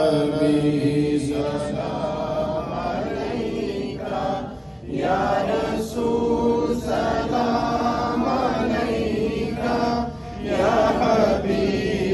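Chanted Urdu devotional singing, a naat in praise of the Prophet, in long drawn-out melodic phrases with brief breaks for breath about five and ten seconds in.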